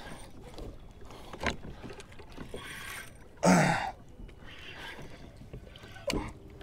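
Water sloshing around a fishing kayak, with knocks and handling sounds, and one short loud burst about halfway through.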